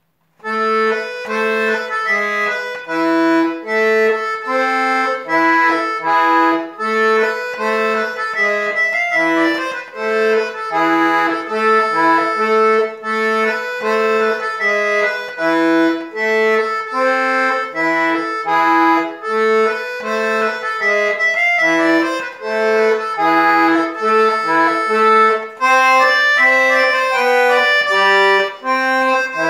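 Solo accordion playing a brisk dance tune, starting about half a second in, with short low bass notes alternating with chords in a steady, bouncing rhythm under the melody.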